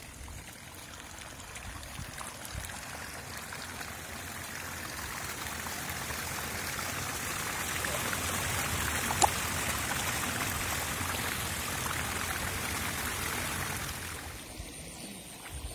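Water streaming and trickling out of a flooded field through a small cut in the earth bank onto a cloth fish trap. The steady rushing grows louder over the first several seconds and drops near the end, with one sharp click about nine seconds in.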